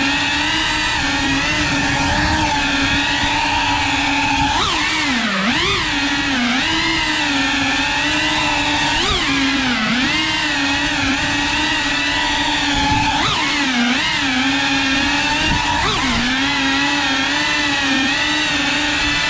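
3.5-inch cinewhoop FPV drone's motors and propellers buzzing in a steady pitched hum, the pitch dipping and swooping back up several times as the throttle changes.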